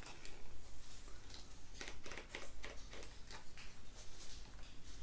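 Over-ear wireless headphones (Fresh 'n Rebel Clam ANC) being handled and fitted over the ears: faint rustling with scattered light clicks and ticks.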